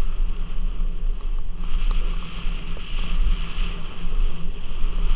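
Wind buffeting the microphone of a helmet-mounted camera, with a mountain bike's tyres running over a dirt trail at speed.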